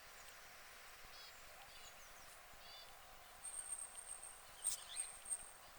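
Black chickens pecking at grain, with a few sharp pecking clicks near the end and short high chirps every second or so. A thin, steady high tone comes in about halfway through.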